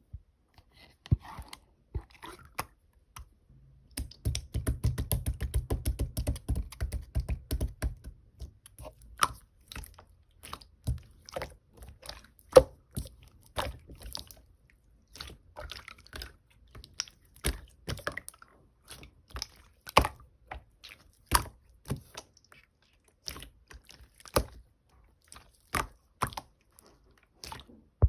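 Strawberry-jam slime being handled and squeezed by hand, giving a string of sticky clicks and pops. About four to eight seconds in comes a quick run of dense, rapid squelching clicks; after that the clicks come one by one.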